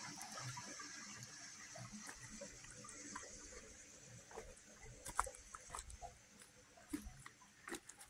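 Quiet footsteps on rocks and leaf litter, with a few sharper clicks of stones underfoot in the second half.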